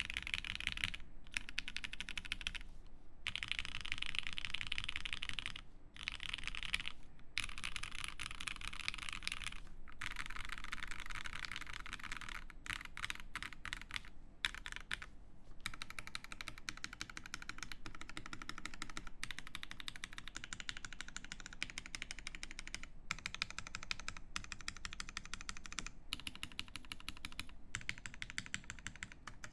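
Fast typing on a TGR Police mechanical keyboard with lubed Gateron Yellow linear switches, a polycarbonate plate and GMK keycaps. The keystrokes come in dense runs broken by several brief pauses.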